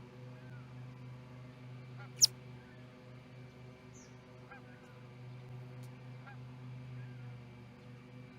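An osprey sneezing once: a single sharp, loud sneeze about two seconds in, over a steady hum, with faint short bird chirps now and then.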